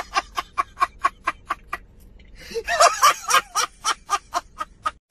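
A man laughing hard in quick, rhythmic bursts of about four or five a second. After a short pause near the middle, a louder run of laughter follows and stops abruptly near the end.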